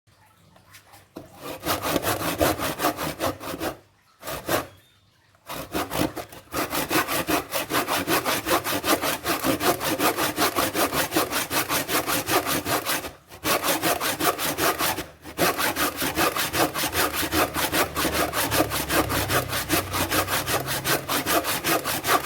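Freshly file-sharpened hand wood saw cutting through wood in fast, steady back-and-forth strokes, a test of the sharpened teeth. It starts about a second in and stops briefly three times.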